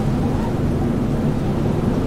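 Strong wind blowing as a steady, low, rushing rumble.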